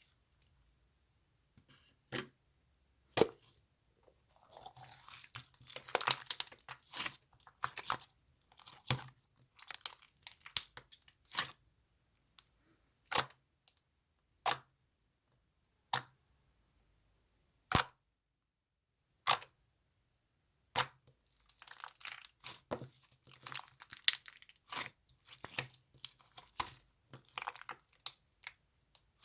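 Clear slime being squeezed and stretched by hand. There are single sharp pops and clicks a second or more apart, and two longer stretches of rapid crackling squelches, one starting about four seconds in and one about twenty-two seconds in.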